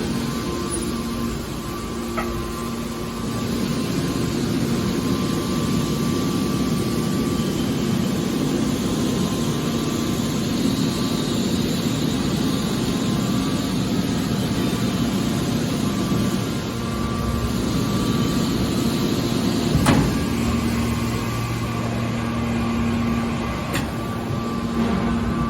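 Metal recycling baler running: a steady machine hum with held tones, typical of a hydraulic power unit, and one sharp knock about twenty seconds in.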